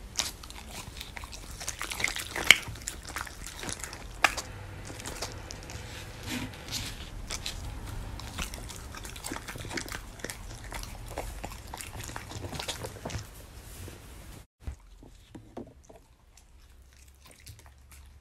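A Samoyed chewing a strip of beef steak close to the microphone: irregular wet chomps and clicks of teeth, the sharpest snaps about two and a half and four seconds in. After a short break near the end, the sounds are fainter and sparser.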